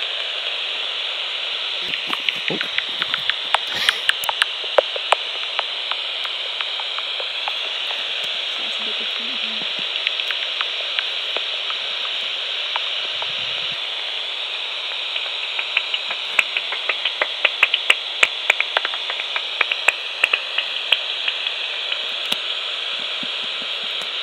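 Magenta Bat5 heterodyne bat detector output: a steady hiss with rapid trains of dry clicks, bat echolocation calls brought down to an audible pitch as bats pass. One short pass comes a couple of seconds in, and a longer, denser run from about 15 to 21 seconds in.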